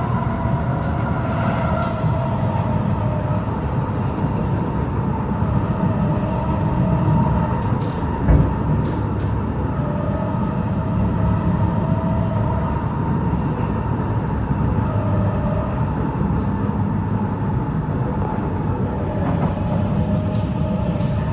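Interior of a Kawasaki C751B metro train running between stations: a steady rumble of the wheels on the track with a constant tone near 1 kHz and higher tones that come and go. There is one sharp knock about 8 seconds in.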